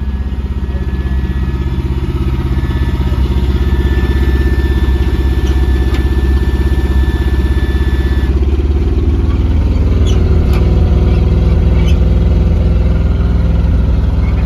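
Dump truck engine running steadily, with a thin high whine over it that stops abruptly about eight seconds in.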